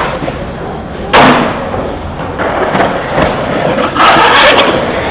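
Skateboard wheels rolling, with a sharp clack of the board hitting the ground about a second in and a louder rolling, scraping stretch near the end.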